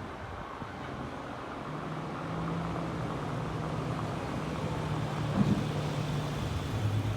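Steady low hum of vehicle engines and road traffic, with a short knock about five and a half seconds in.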